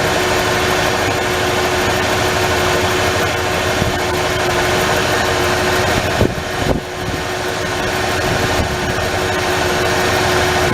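1994 Ford F-150's 4.9-litre straight-six engine idling steadily, with a steady thin whine over the running noise. A couple of short knocks come about six seconds in.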